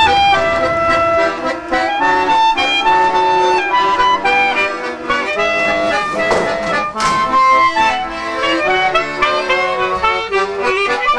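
Instrumental music with a clarinet playing a melody that steps from note to note over accompaniment.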